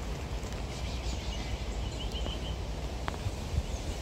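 Outdoor ambience: a steady low rumble with a few faint, short, high bird chirps, and a single short click about three seconds in.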